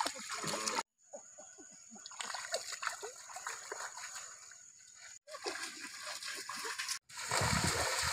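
Bare feet wading and splashing through a shallow stream, turning into loud running splashes about seven seconds in. The sound cuts out briefly a few times.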